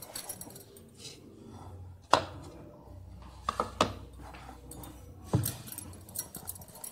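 Wooden rolling pin rolling out paratha dough on a steel plate, with a handful of sharp knocks as it strikes the plate, the loudest about two seconds in.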